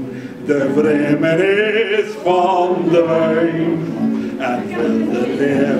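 A man singing in a full voice, holding long notes with vibrato, to his own classical guitar accompaniment.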